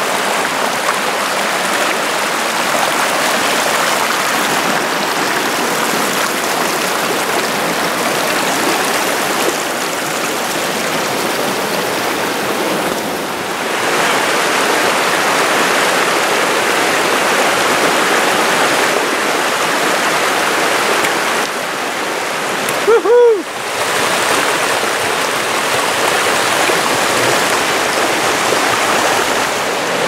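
Shallow mountain creek running and burbling over rocks, a steady rush of water. About three-quarters of the way through the sound briefly drops out and a short pitched sound cuts in, the loudest moment.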